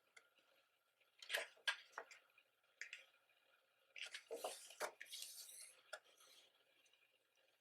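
Pages of a thick photo book being handled and turned: a few short taps about a second in, then a longer paper rustle around four to five and a half seconds in.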